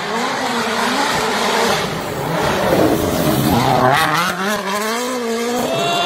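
Rally car engine revving hard on a gravel stage as the car approaches and slides through a corner. The engine note rises and falls through the gears, dipping sharply about four seconds in before climbing again, over the hiss of gravel thrown up by the tyres.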